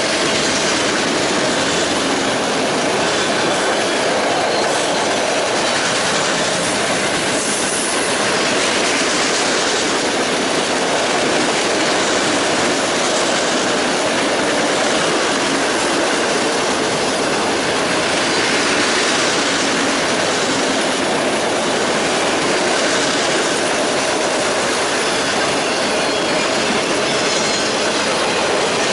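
Long freight train of autorack cars rolling past, a steady rush of steel wheels on rail.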